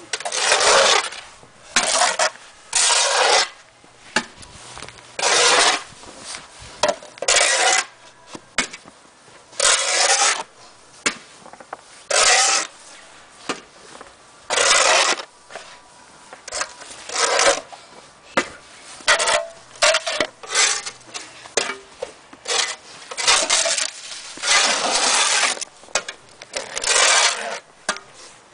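Snow shovels scraping and pushing snow across paving, in repeated strokes about every one to two seconds, some longer than others.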